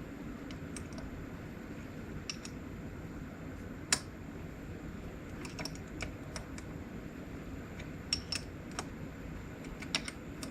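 Scattered light metallic clicks and clinks of nuts, washers and hold-down bolts being handled and put on loosely while a milling vise is fitted to the mill table, the sharpest click about four seconds in. A low steady hum lies underneath.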